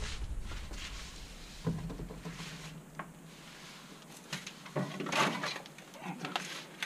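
Scrapes and knocks as a heavy lidded enamel pot is set onto the brick hearth of a wood-fired Russian oven, then a louder scraping stretch from about four seconds in as the metal oven door is handled.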